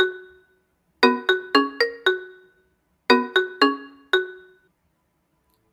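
Short musical intro jingle of separate pitched notes: one note, then a quick run of five, and after a pause of about a second four more. Each note starts sharply and rings out as it fades.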